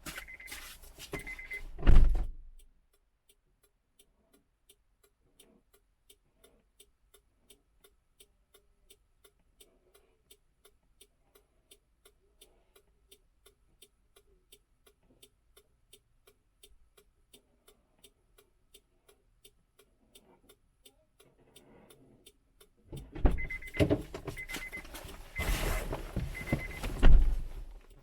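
Inside a parked car: a door-open warning chime beeping over rustling, then a car door shutting with a loud thud about two seconds in. In the quiet cabin the flasher ticks steadily, about one and a half ticks a second, until near the end the door opens again with the same chime and is shut with another thud.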